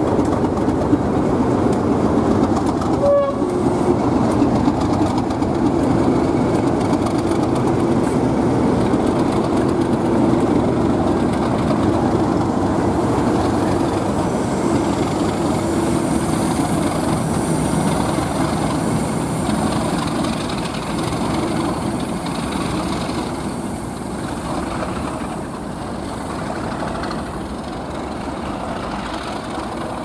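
Class 37 diesel locomotives with English Electric V12 engines running past close by, hauling a snowplough train, with engine noise and wheels on the rails. A short tone sounds about three seconds in. The sound drops after about twenty seconds as the train draws away.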